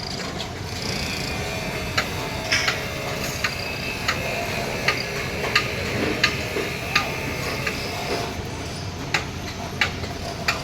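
Steady outdoor background hum with short, sharp ticks repeating at a fairly even pace, about every 0.7 seconds.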